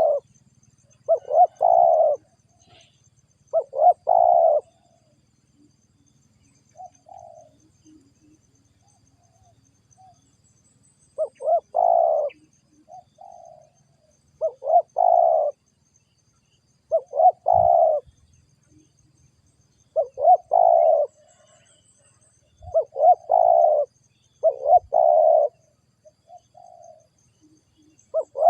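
Spotted dove (tekukur) cooing: about nine loud phrases of roughly a second each, repeated every few seconds, with softer short coos in between.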